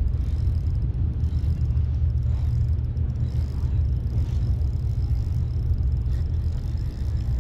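Boat's outboard engine idling, a steady low rumble.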